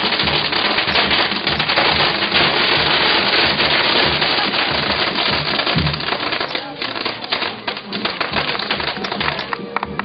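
A string of firecrackers crackling in a rapid, dense run of bangs that thins out after about six seconds, with music and a low steady beat underneath.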